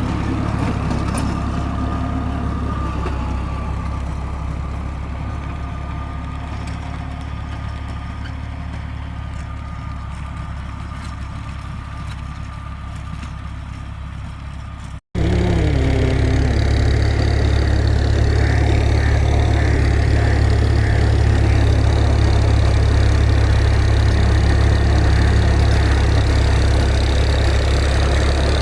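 Fiat 480 tractor's three-cylinder diesel engine idling steadily. About halfway it breaks off for an instant and comes back louder.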